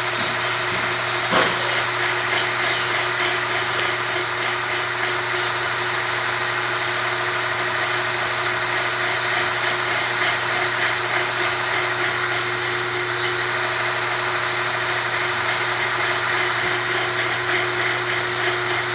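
A small motor running with a steady, even hum, with a single sharp knock about a second and a half in.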